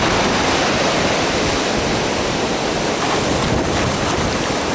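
Wind buffeting the microphone over the steady wash of Black Sea surf.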